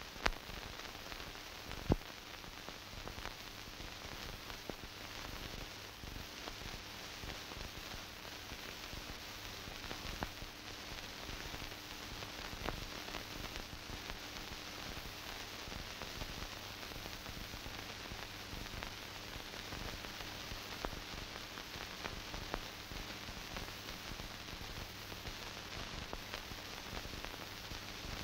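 Steady hiss and crackle of an old film soundtrack, with a faint steady hum beneath it. There is a sharp click about two seconds in and a few fainter ticks scattered through.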